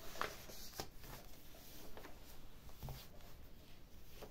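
Paper and card pages of a handmade junk journal being turned by hand: soft rustling, a few short flaps of the sheets, and one dull knock about three seconds in.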